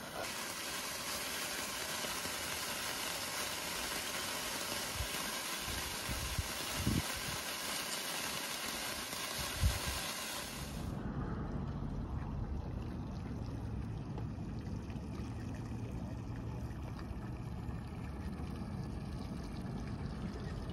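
Handheld sparklers fizzing with a steady hiss, broken by a few low knocks. About halfway through the hiss stops and a small fishing boat's engine idles with a low steady hum.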